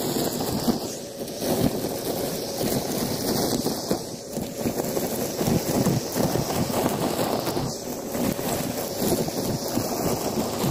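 Vacuum cleaner hose running, sucking up confetti, glitter and small bits of debris off a rug, with a steady rushing of air and a dense crackling rattle of pieces going up the hose.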